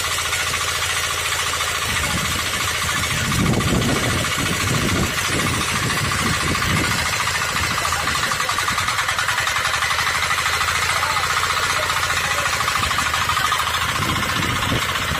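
Power tiller's Agrimart 9 HP single-cylinder diesel engine running steadily with a fast, even knock.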